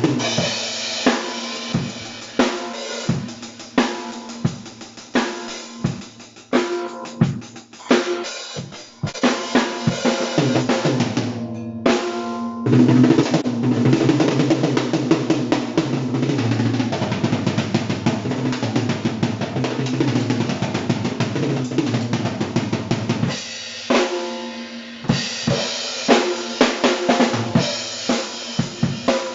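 Tama Imperialstar acoustic drum kit being played, with bass drum and snare beats. About twelve seconds in, after a short break, the playing turns into a long, fast, continuous roll lasting some ten seconds, then separate beats return near the end.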